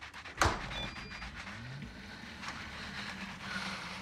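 A single sharp knock about half a second in, followed by a brief faint high ring, then a low steady hum.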